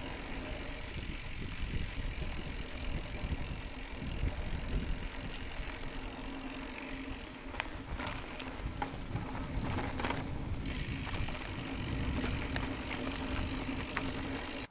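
Mountain bike rolling along at riding speed: steady rolling noise with a constant low hum and scattered clicks and rattles from the bike, cutting off suddenly at the end.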